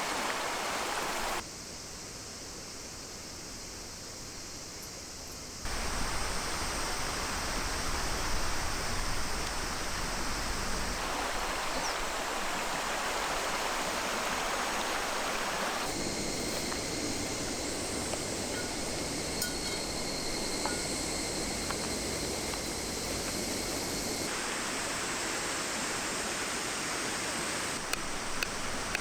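Steady outdoor rushing noise with no clear pitch, changing in level and character abruptly several times; a few faint clicks near the end.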